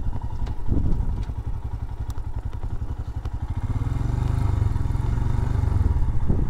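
Royal Enfield Himalayan's single-cylinder engine running under way, a steady train of exhaust pulses, getting a little louder from about four seconds in.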